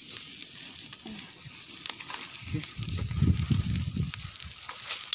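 Faint crackling and rustling of smouldering dry brush, with muffled rubbing and thumps from about two and a half seconds in as a phone is handled against a shirt.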